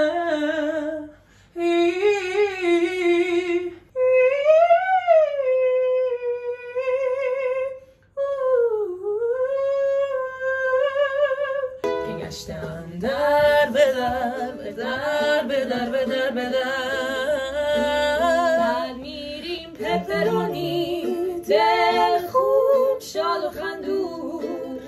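A woman's solo voice doing vocal warm-up exercises: held notes, a rising-and-falling glide and a swooping dip, some notes wavering, with short breaks between. About twelve seconds in it gives way to several people singing together to a strummed ukulele.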